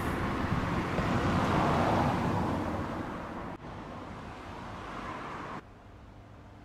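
Road traffic: a car passing close by, swelling to its loudest about two seconds in and fading away, then a quieter traffic hum that drops off suddenly twice.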